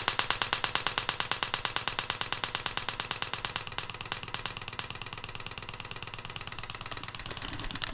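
Ignition-coil high-voltage spark snapping across a small gap in a rapid, even train of sharp cracks, about ten a second. About three and a half seconds in the snaps grow fainter and more crowded as the variac voltage is turned down.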